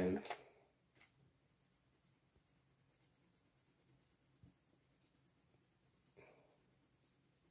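Coloured pencil shading on textured sketchbook paper: faint, quick back-and-forth scratching strokes at an even rhythm of about five a second.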